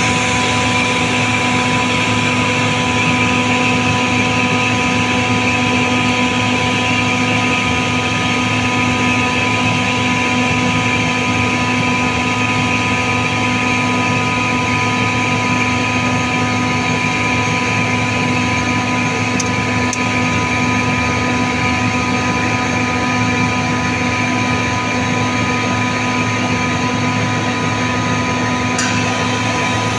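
Compressor running steadily, a constant machine hum with a high whine over it.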